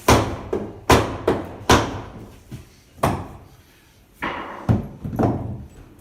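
Construction work on wooden wall framing: a series of about ten sharp bangs at irregular spacing, each with a short ring, the loudest in the first two seconds.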